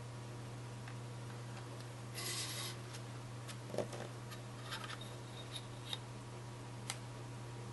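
Small objects being handled: a brief rubbing scrape a little past two seconds in, then five or six light, sharp clicks spread over the following few seconds, over a steady electrical hum.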